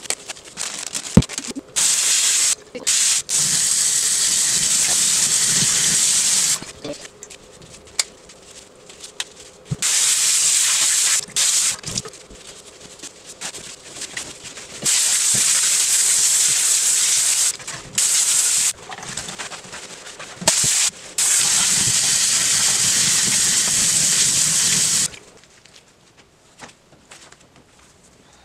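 Tap water running hard into a utility sink as freshly tie-dyed cloth is rinsed out, in several long stretches that start and stop abruptly, with quieter handling sounds in between.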